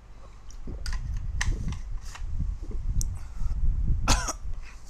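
A man clearing his throat and coughing close to the microphone, with a loud cough about four seconds in. Several short knocks and a low handling rumble run through it.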